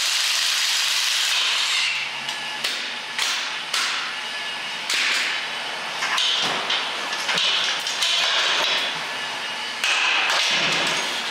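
Shop tool noise during a truck teardown. A steady hiss runs for about the first two seconds, then gives way to a string of irregular metal knocks and short bursts of tool noise.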